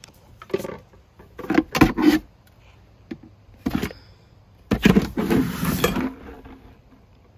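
Hard plastic Halloween cauldrons and a thin curved liner being handled: a few sharp knocks and clatters, the loudest cluster about two seconds in. Near the end comes a longer scraping rustle as the items are shifted among the box contents.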